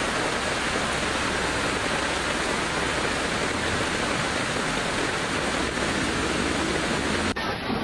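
Steady, loud rushing of water, with no rhythm or pitch. It changes abruptly near the end.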